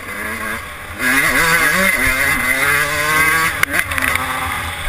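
Yamaha YZ125 single-cylinder two-stroke dirt bike engine revving hard under way. Its pitch repeatedly climbs and drops as the throttle opens and the gears change, and it gets louder about a second in. A sharp knock comes about three and a half seconds in.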